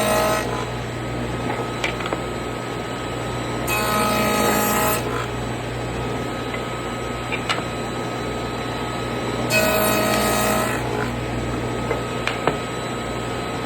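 Table saw with a dado stack running steadily, taking two tenon-cutting passes through wooden rails. Each pass is a louder whining cut lasting about a second, one about four seconds in and one about ten seconds in.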